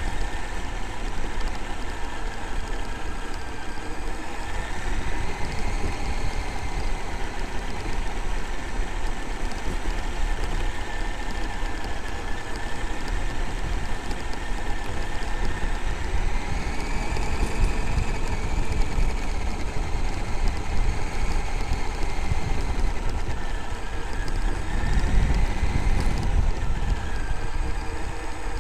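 Traxxas X-Maxx RC monster truck's electric brushless motor and drivetrain whining, the pitch rising and falling several times as it speeds up and slows, over a steady rumble and rattle of tyres and chassis on rough grass.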